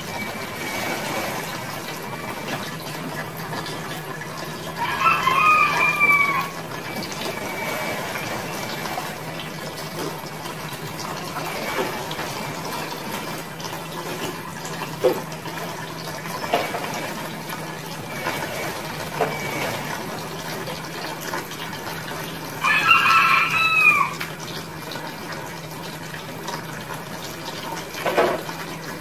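A rooster crows twice, the crows about seventeen seconds apart and the loudest sounds here, over the light splashing and trickling of water from someone bathing.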